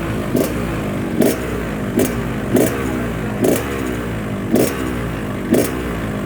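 Yamaha RX-King's single-cylinder two-stroke engine running and blipped about once a second, each short rev sinking back toward idle.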